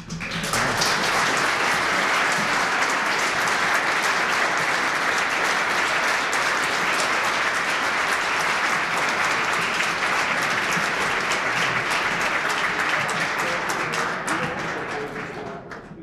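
An audience applauding: dense clapping from a room full of people that starts abruptly, holds steady, then fades out over the last couple of seconds, with a few voices under it near the end.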